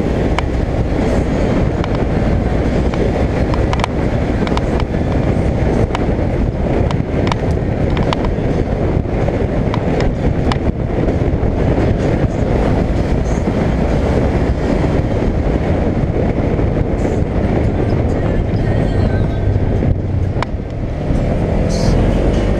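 Polaris General XP 1000 side-by-side driving along a dirt trail: its twin-cylinder engine running steadily under way, with frequent short knocks and rattles as the machine goes over bumps.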